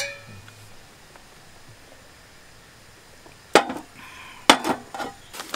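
Two stainless steel camp mugs clinked together in a toast: one sharp clink that rings briefly. After a quiet stretch, two sharp knocks about a second apart, a third of the way from the end.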